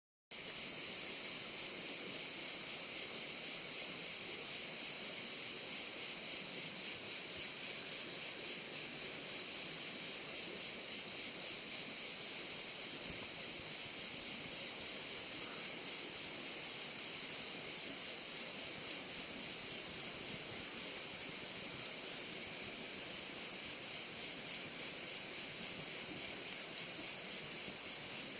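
Crickets chirping in a continuous high-pitched chorus, steady and evenly pulsing throughout.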